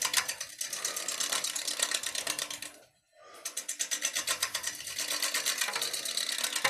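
Gouge roughing a spinning, recently harvested cedar natural-edge bowl blank on a wood lathe: a fast, even rhythm of hits under the cutting hiss, the interrupted cut of a blank that is still out of round with bark on its edge. The cut stops briefly about three seconds in, then resumes.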